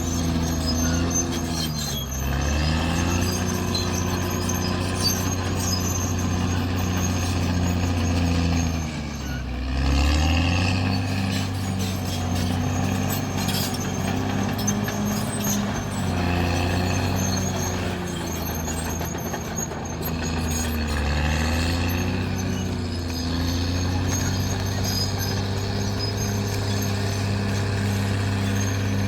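Caterpillar D6R bulldozer's diesel engine running steadily, its pitch dropping and then recovering several times.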